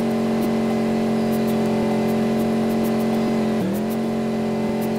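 Off-road tourist bus running under steady drive with a steady, pitched hum. About three and a half seconds in the note dips sharply and then climbs back.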